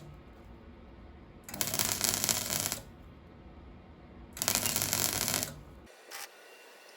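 Welder laying short spot welds on a Ford Transit's A-pillar repair panel: bursts of about a second each, separated by short pauses. Near the end come a few short, fainter ticks.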